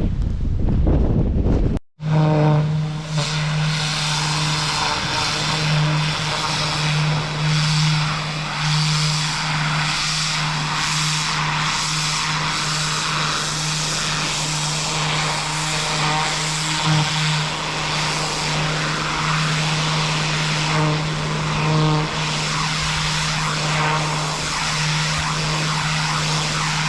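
Wind buffeting the microphone briefly, then, after a sudden cut, a pressure washer running steadily: a constant low engine hum under the dense hiss of the high-pressure water spray.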